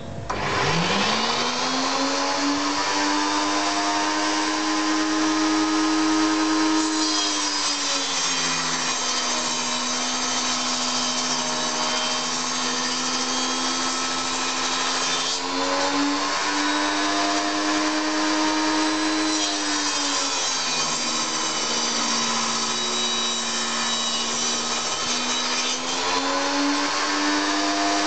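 Schwarzbau TS250A table saw being switched on, its motor whining up to speed in about two seconds and then running steadily. Twice the pitch drops for several seconds as the blade is loaded cutting through a wooden board, rising again as each cut ends.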